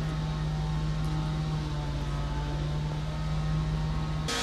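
Stadler WINK bimodal multiple unit standing at the platform, its diesel power unit idling with a steady low drone.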